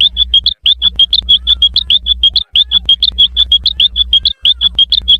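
Cartoon sound effect of rapid high chirps, about eight or nine a second, heavily over-amplified so that a low distorted buzz runs beneath it. The chirps come in runs of about two seconds with brief breaks between them.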